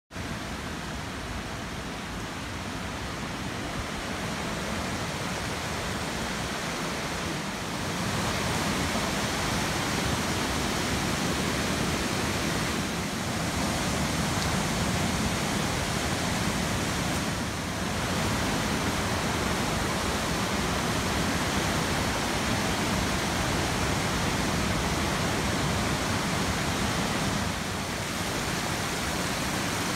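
Muddy floodwater rushing through a swollen river channel and over the ground: a steady, loud rush of water.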